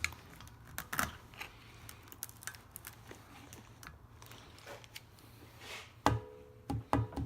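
Metal parts and tools clicking and knocking while a semi-hermetic compressor is taken apart, with two sharper metallic clanks near the end that ring on briefly.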